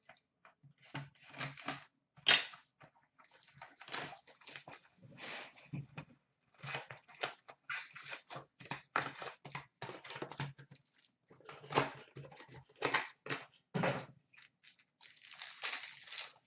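Cardboard box of hockey cards being opened and its packs handled and torn open: a run of short rustling, crinkling and tearing noises.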